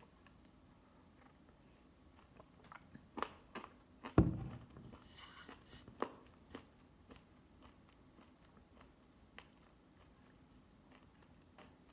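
Soy nuts crunching between the teeth: faint, scattered crunches while chewing, with one heavy thump about four seconds in.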